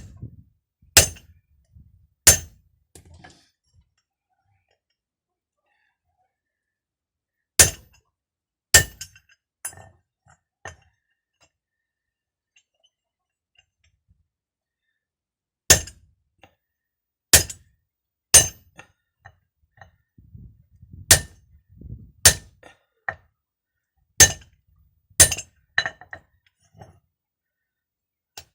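Sharp metallic clinking strikes, about a dozen in clusters of two or three separated by quiet pauses of several seconds: metal being struck while a hydraulic hose fitting is assembled by hand.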